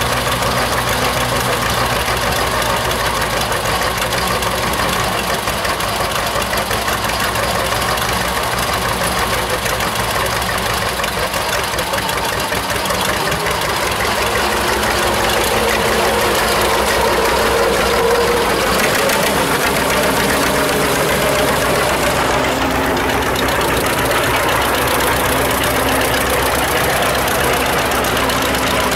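Several vintage John Deere two-cylinder tractor engines idling together, a steady, loud, rapid pulsing beat.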